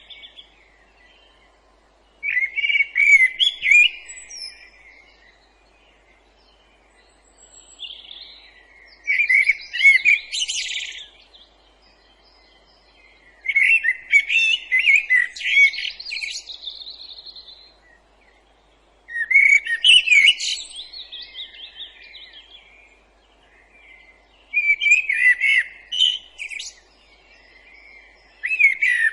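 A songbird singing a series of warbling phrases, each a few seconds long with high twittery flourishes, separated by short pauses.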